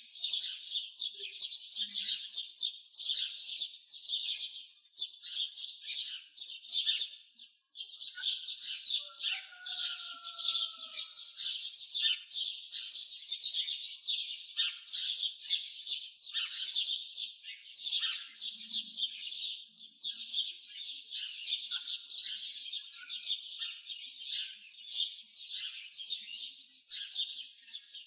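A dense chorus of many small birds chirping continuously, with a brief break about seven seconds in and a lower, drawn-out note shortly after.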